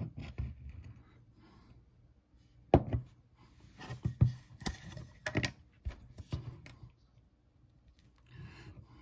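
Handling noise: irregular sharp clicks, taps and light knocks of objects being picked up and set down on a work surface, the loudest about three seconds in, with a soft rustle near the end.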